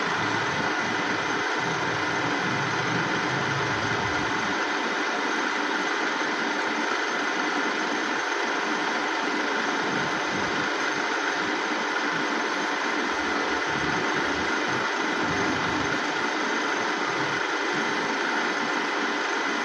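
Dufour 221 universal milling machine running steadily: an even mechanical noise with a few faint steady tones and a low rumble that comes and goes.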